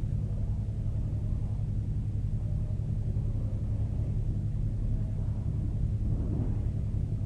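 Steady low background rumble and hum with no sudden sounds.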